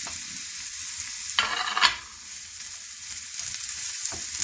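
Chopped onions sizzling steadily in olive oil in a small non-stick frying pan, as a spatula stirs and scrapes through them, loudest about a second and a half in, with a few light clicks of the spatula against the pan near the end.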